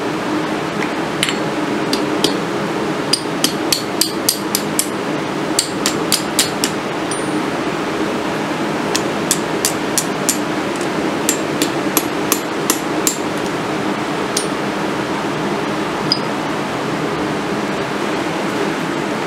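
Hand hammer striking a red-hot steel bar on a blacksmith's anvil, with sharp, ringing blows in quick runs of several, pauses between the runs and a few single blows near the end. A steady rushing noise runs underneath.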